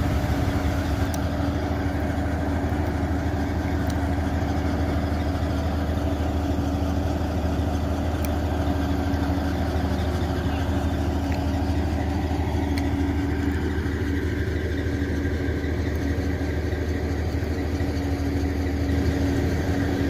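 An engine running steadily at a constant speed, with an even low drone.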